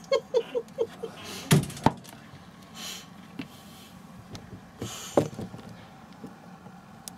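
Kitchen handling noises on a worktop as a knife works chopped onion and green pepper on a plate: a quick run of short squeaks, then two sharp knocks, then rustling and a clunk.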